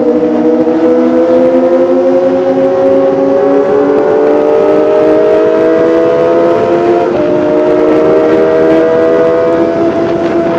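Kawasaki ZX-25R's 249 cc inline-four engine running at high revs, its high-pitched note climbing slowly and steadily under acceleration, with a short break in the tone about seven seconds in.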